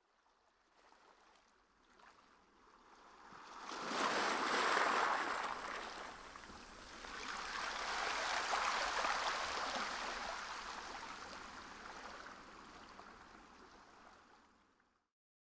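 Sea water rushing and churning after a plunge, swelling to a peak about four seconds in and again around eight seconds, then fading away.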